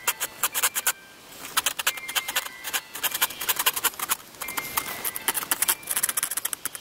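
Small fine-toothed hand craft saw cutting across a 20 × 5 mm wooden strip, in rapid rasping back-and-forth strokes of several a second. There is a short pause about a second in, and then the sawing runs on.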